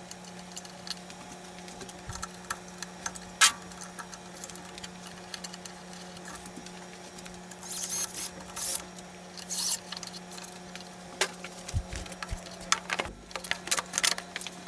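Scattered clicks and clinks of bolts and tools on a scooter's metal seat-pan bracket and frame, with a short run of cordless driver noise about halfway through, over a steady low hum.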